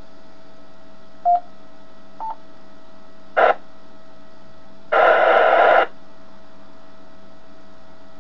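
Amateur radio transceiver receiving on the ISS downlink frequency of 145.800 MHz: a steady whistling tone with a few short beeps at different pitches and a brief crackle, and about halfway through a loud burst of static hiss lasting about a second.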